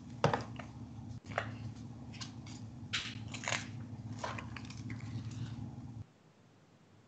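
Pages of a photo book being flipped and handled: a run of papery rustles and crinkles over a low hum, all stopping about six seconds in.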